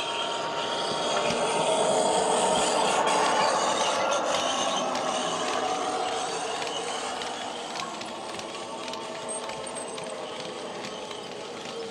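Model freight train running past on the layout track, its box wagons' wheels rattling and clicking along the rails. The Class 66's DCC sound decoder plays a diesel engine sound through the model's speaker. The sound swells as the train passes closest, about two to five seconds in, then fades as it runs away.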